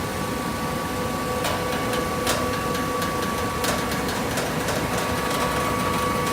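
Coconut fiber baler running with a steady mechanical hum, broken by scattered sharp clicks and knocks, several in the middle of the stretch.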